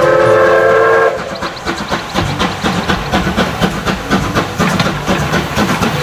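Train whistle blowing for about a second, then the quick, even clickety-clack of a rolling train.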